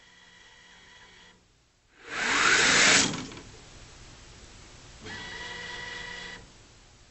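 Electric actuators on a lunar-mining robot whining steadily as they raise and tilt its hopper into the dumping position. The whine stops about a second and a half in and starts again later for just over a second. In between, a loud rushing noise lasting about a second is the loudest thing.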